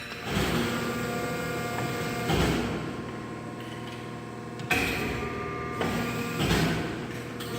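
CNC-60ST pipe bending machine working through a 180° bend: a steady motor hum with several mechanical clunks at intervals.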